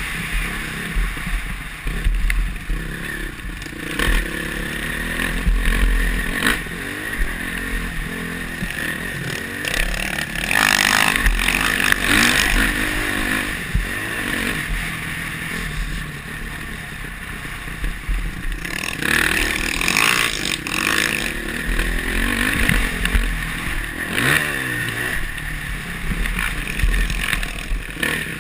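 Honda CRF450R's single-cylinder four-stroke engine ridden hard on a motocross track, its pitch rising and falling again and again as the throttle is opened and shut, with rattling from the bike over the bumpy dirt, heard from a helmet-mounted camera.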